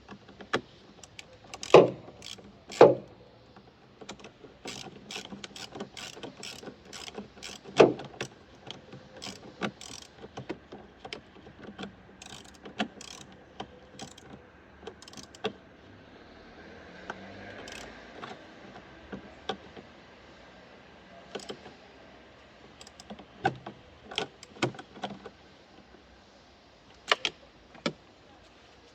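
Irregular clicks, knocks and clanks of hand tools and metal parts being handled during work on a car's windshield wiper motor and linkage, with a few louder clunks in the first eight seconds.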